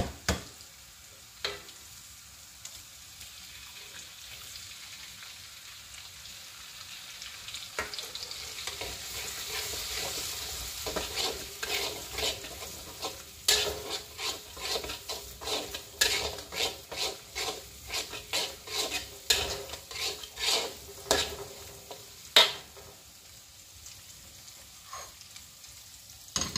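Egg sizzling in hot oil in a wok, then a metal spatula scraping and knocking against the wok about twice a second as the egg is scrambled. The stirring stops a few seconds before the end.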